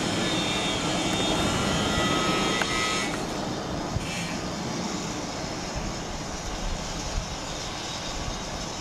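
A formation of military attack helicopters flying past: a steady rotor and engine drone with a thin, higher turbine whine that fades about three seconds in as the helicopters draw away.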